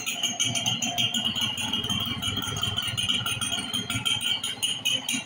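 Yamaha YB100 motorcycle's single-cylinder two-stroke engine running at idle, heard close to the exhaust, with a fast, even rattling beat.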